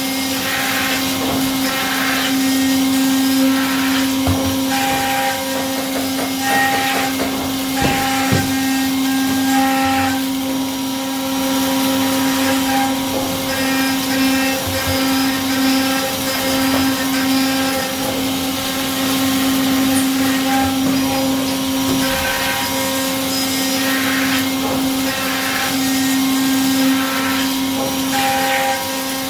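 CNC milling machine running a 4th-axis production job: a steady spindle whine with changing cutting and hissing noise over it.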